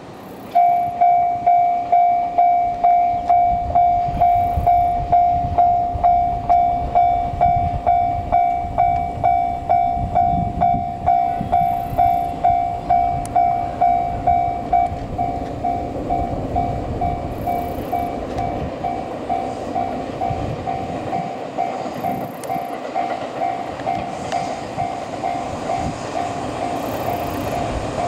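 Japanese level-crossing warning bell starting up about half a second in and ringing about twice a second, a single repeated tone that signals a train is approaching. Under it is the low rumble of an approaching HC85 series hybrid limited express train.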